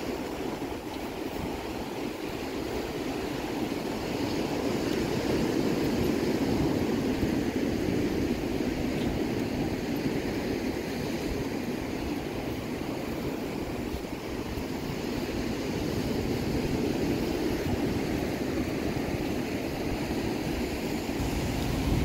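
Surf washing onto a sandy beach, mixed with wind rumbling on the microphone; the wash swells and eases slowly.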